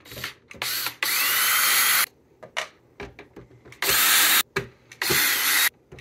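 Cordless drill backing out the screws that hold the stand on a Dell monitor's plastic back. It runs in short bursts, the longest about a second, several times with short pauses between.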